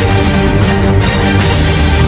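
Loud music with sustained low notes held under a steady level.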